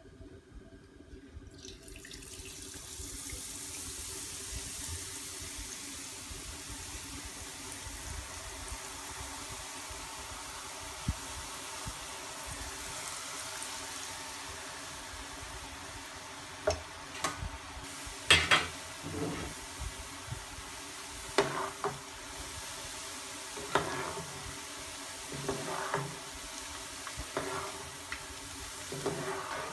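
Boondi batter drops frying in hot oil: a steady sizzling hiss that starts about two seconds in. From about halfway, sharp metal clinks and knocks of the skimmer and spoon against the pan come every second or two.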